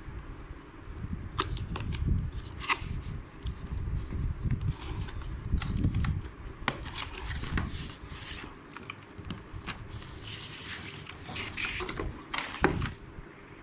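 Unboxing of a boxed mechanical keyboard: cardboard and plastic packaging rustling, scraping and tearing, with irregular handling knocks and clicks.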